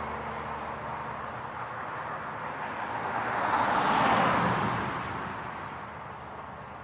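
Heavy truck passing at highway speed. Its tyre and engine noise swells to a peak about four seconds in, then fades away.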